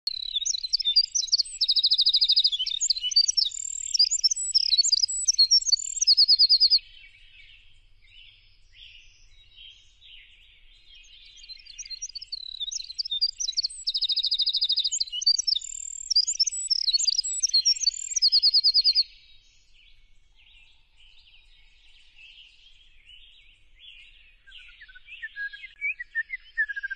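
Birdsong: one bird sings a loud, varied high-pitched phrase with a fast trill, and repeats it about twelve seconds later, over a steady chorus of fainter chirping from many birds.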